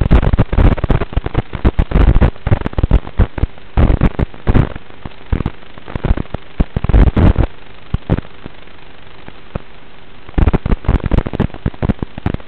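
Crackling, popping static from the audio channel of an analog FPV video link, coming in dense irregular bursts that thin out after about five seconds and return near the end. A faint steady hum runs underneath.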